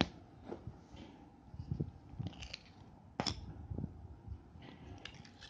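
A plastic lid taken off a small slime tub, then fingers pressing and poking clear slime in the tub, making soft sticky clicks and squelches, with one sharper pop about three seconds in.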